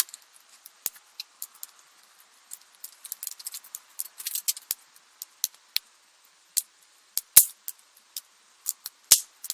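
Campfire crackling: irregular sharp pops and snaps from burning wood. A louder pop comes about seven seconds in, and another just after nine seconds.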